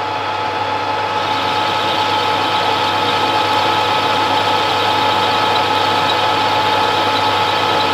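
Warco WM180 mini lathe running under cut, its tool turning a metal pin down at a 1 mm depth of cut. A steady motor and gear whine, with a cutting hiss that grows louder about a second in.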